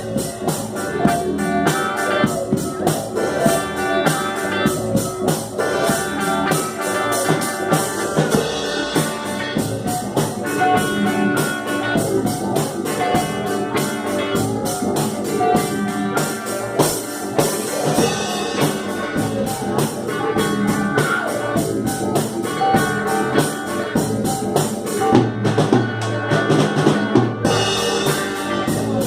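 Instrumental psychedelic rock jam: a drum kit keeps a steady beat under electric guitars and synthesizer.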